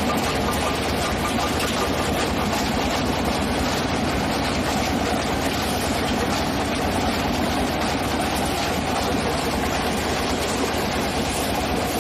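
A heavy machine's engine running steadily at an even pace, with no separate blows or impacts standing out.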